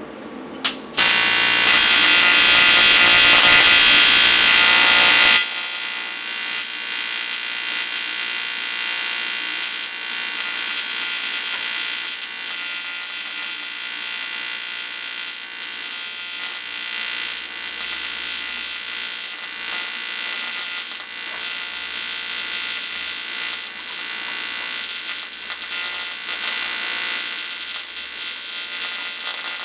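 AC TIG welding arc on aluminium. After a brief click it strikes about a second in with a loud hiss for several seconds, then settles into a steady, even buzz.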